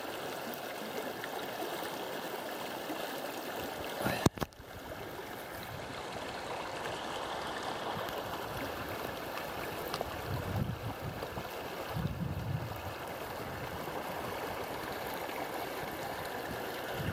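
Creek water rushing over rocks, a steady hiss. A sharp knock comes about four seconds in, and two brief low rumbles of wind on the microphone come in the middle.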